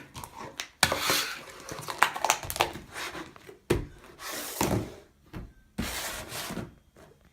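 Slime being squished and pressed in the hands: irregular wet clicks, pops and rubbing handling noises, in short uneven bursts.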